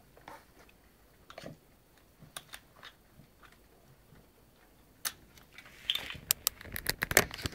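Plastic high-chair seat belt buckle being fumbled by a toddler's hands: a few scattered clicks and taps, then a quick flurry of clicks and knocks starting about five seconds in.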